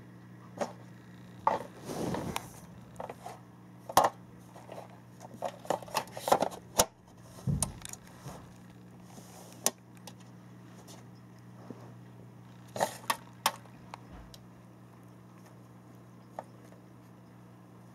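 Small plastic drawer unit knocking, clicking and scraping as a cat paws and pushes at it: irregular sharp clicks and clunks, thickest in the first seven seconds and again around thirteen seconds in, over a steady low hum.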